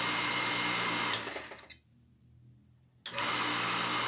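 Half-horsepower Foset electric water pump running dry with a steady motor hum and whir; it is switched off about a second in and winds down to silence, then is switched back on just after three seconds and starts up abruptly, running again.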